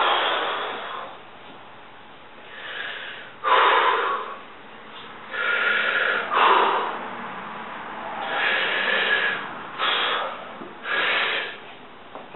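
A man's forceful, noisy breaths and strained exhalations, about eight in a row with short pauses between, from the effort of bending a steel drill rod by hand.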